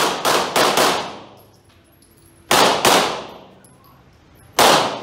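Pistol shots fired in quick pairs inside an indoor range, each crack followed by an echoing tail: about four in the first second, two more about two and a half seconds in, and another pair near the end.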